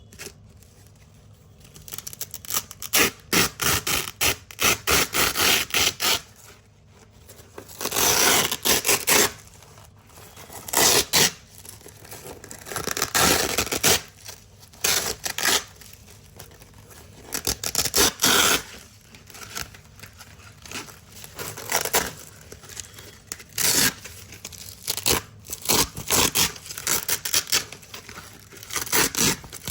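Hook-and-loop (Velcro) strips being ripped off a big black Velcro roll, over and over: crunchy tearing rips, some quick and some drawn out over a second or so, with short pauses between.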